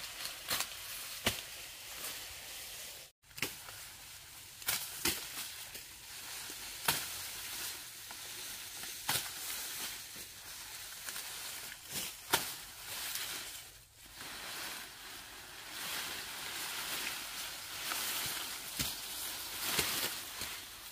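Grass being cut by hand: steady rustling of stems with irregular sharp cutting strokes, roughly one every second or two.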